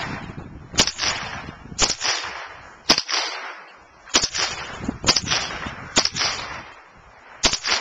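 Scoped rifle fired seven times in quick succession, about a second apart, each shot's crack trailing off in a short echo.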